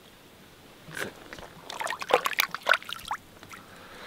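Water splashing and dripping in a quick, irregular run of small splashes lasting about two seconds, as a small fish is freed from the jig and let go back into the water.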